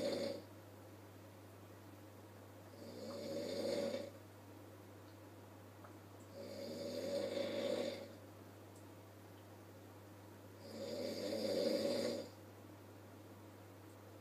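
A sleeping person snoring loudly, thunderous snores in a steady breathing rhythm: the tail of one snore at the start, then three more, each swelling for about a second and a half and cutting off, roughly every three and a half to four seconds.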